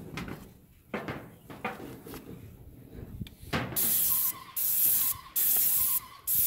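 High-pressure paint spray gun hissing in four short bursts, each about half a second long, as the trigger is pulled and let go, starting about four seconds in. Before that, a few light knocks and rustles.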